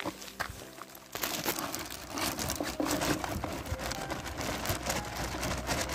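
Background music with steady tones stops about a second in. After that, close, dense crinkling and rustling fills the rest, many small crackles in quick succession, the sound of something being handled right at the microphone.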